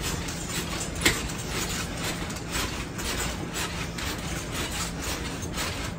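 A mini-trampoline rebounder creaking and thudding rhythmically under steady bouncing, about two bounces a second, with one sharper knock about a second in.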